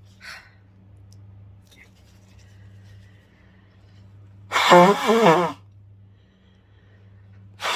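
A woman sneezing hard, brought on by Chhinkni sneezing powder: one loud, breathy, voiced sneeze about four and a half seconds in, lasting about a second, and another starting at the very end.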